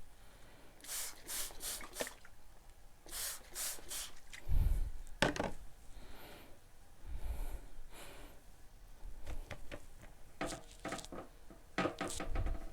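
Spray bottle squirted in quick runs of three or four pumps, wetting fabric with vinegar, with dull bumps and knocks of handling in between.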